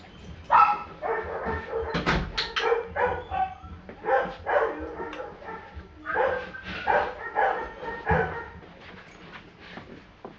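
German Shorthaired Pointer barking and whining in repeated short bursts, tapering off near the end.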